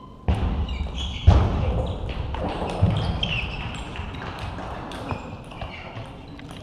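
Table tennis point in a large sports hall: a few sharp ball clicks, then a sudden burst of loud noise with heavy thuds about a second in, dying away over the next few seconds.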